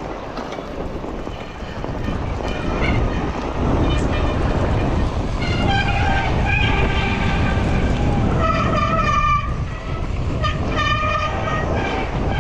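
A mountain bike descending fast on snow: wind rushing over the camera and the tyres rumbling, louder from about four seconds in. In the second half, shrill squealing tones sound several times, each lasting about half a second to a second.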